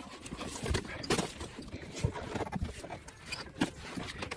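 Irregular knocks, clicks and rustling of camping gear and packed items being handled and unpacked.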